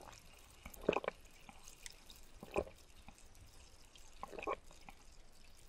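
Water being drunk from a glass mug, close to the microphone: three separate wet gulps, each short, about a second and a half apart.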